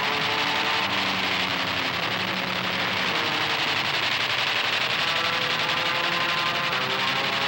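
Steady drone of a propeller fighter plane's engine with rapid machine-gun fire rattling through it.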